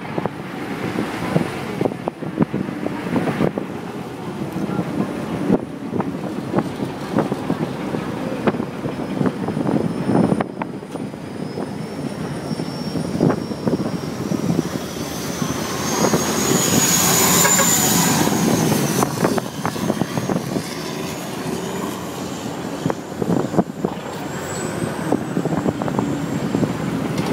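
River ferry's engine running steadily under way, with wind buffeting the microphone. A thin high whine slowly rises in pitch through the middle, and the noise swells to its loudest briefly about two-thirds of the way through.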